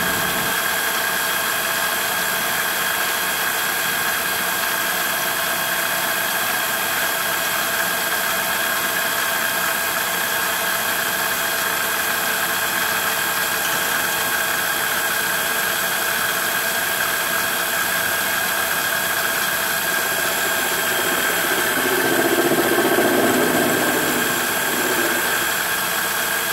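Central Machinery 7x10 mini lathe running steadily with a steady whine, turning a small screw in its three-jaw chuck while the tool cuts the screw head off. Between about 21 and 25 s the sound turns louder and rougher.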